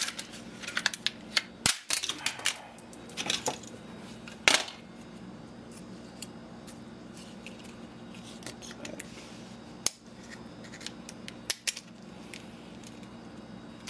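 Plastic charger casing being pried and cracked open by hand: a run of sharp clicks and snaps in the first few seconds, the loudest about four and a half seconds in, then only a few scattered clicks.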